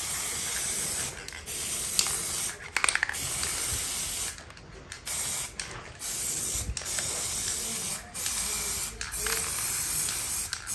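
Aerosol spray-paint can spraying in a series of hissing bursts of one to two seconds each, with a longer pause about four seconds in.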